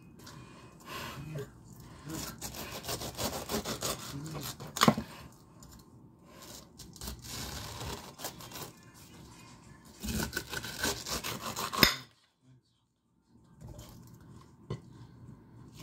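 Kitchen knife sawing and cutting through a pineapple, a rasping, scraping sound broken by sharp knocks of the blade, the loudest about five seconds in and just before twelve seconds; the cutting pauses briefly after that.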